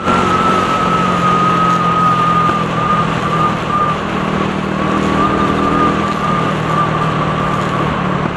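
Motorcycle riding along a road, heard through the camera's own microphone: the engine runs steadily as a low hum under heavy wind noise, with a thin, high, steady whistle that wavers slightly.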